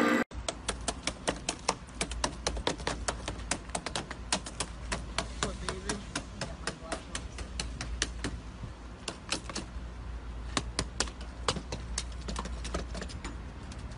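Rapid, irregular sharp clicks and knocks, several a second, from a metal tool tapping and working against a car's window glass and door frame as a police officer tries to break in to free a dog.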